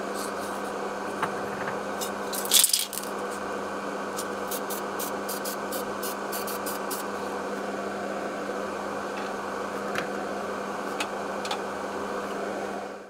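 Spray booth extraction fans running with a steady hum. A brief loud hiss comes about two and a half seconds in, and light clicks are scattered throughout; the sound cuts off abruptly at the end.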